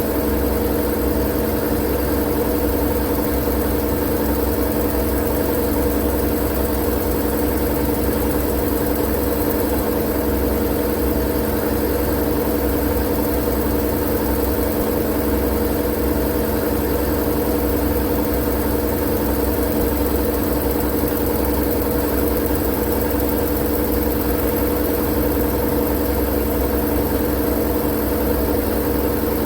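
Steady white-noise drone: a constant hum with an even hiss over it, unchanging in level and pitch.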